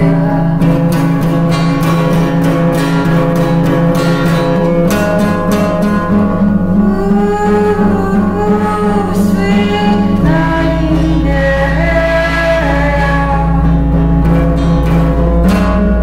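Music: a steady low drone under a slow melody, with a singing voice carrying a gliding line from about six seconds in.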